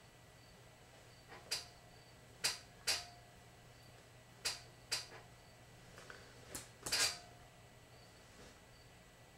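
Sharp slaps and taps of hands striking each other while signing, about seven of them between roughly 1.5 and 7 seconds in, two of them coming close together near the end.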